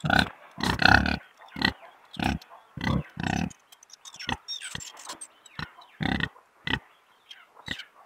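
Domestic pigs grunting: a run of short grunts in quick succession, loudest in the first half and softer and more spaced out later.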